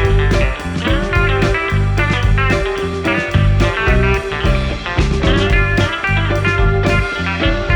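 Background music: electric guitar with bass and drums at a steady beat.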